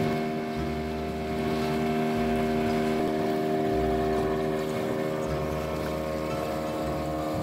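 A wooden fishing boat's engine running steadily under way at cruising speed, with water splashing along the hull from the bow wave.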